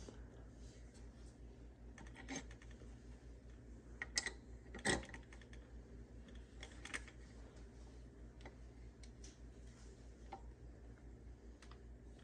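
Scattered light clicks and taps of metal bike parts being handled as a crank arm is held and its bolt is screwed on by hand, with two sharper knocks about four and five seconds in. A low steady hum runs underneath.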